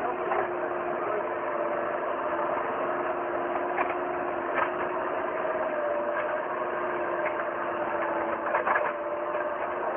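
Bobcat skid-steer loader's diesel engine running steadily under load as it pushes manure, with a few short clanks from the machine and its grapple bucket.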